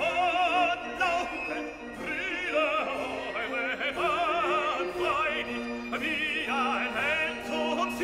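Operatic singing with strong vibrato over an orchestral accompaniment.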